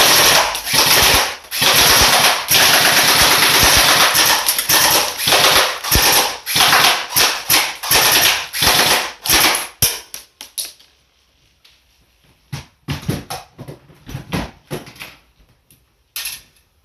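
Airsoft rifle firing on full auto in long, rapid bursts that stop about ten seconds in. After that come a few scattered knocks and clatters.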